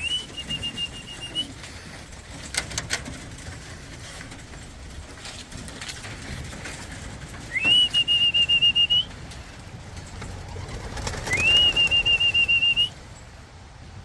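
A trilling whistle blown in three blasts of about a second and a half each, one at the start, one about midway and one near the end, each sliding up into a high warbling note. A few short sharp clacks sound between the first two blasts.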